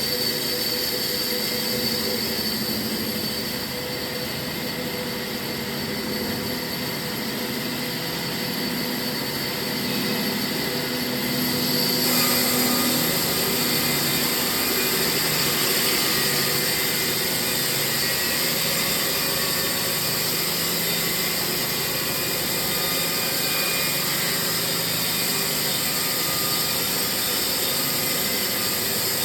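Portable sawmill running steadily as it cuts a log, a continuous machine drone with a hissing cut. The hiss grows brighter and louder about twelve seconds in.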